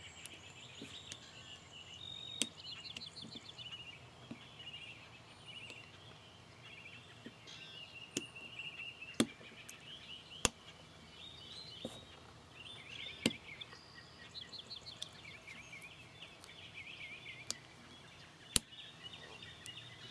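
Sharp, scattered metallic clicks of a small screwdriver working against an M1 carbine bolt as it is pried in between the extractor and its spring plunger, about eight clicks with the loudest near the end. Faint birdsong chirps and twitters throughout.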